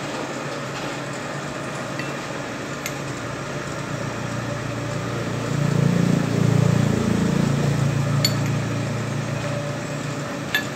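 A few sharp, separate metal clinks as a cutting tool is fitted into a lathe's tool post and its clamp screws are tightened with a wrench. Under them runs a steady low machine hum, which swells louder for a couple of seconds about halfway through.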